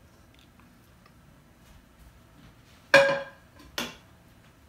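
A kitchen utensil knocks against the metal baking tray: one sharp clack with a brief ring about three seconds in, then a lighter tap a moment later.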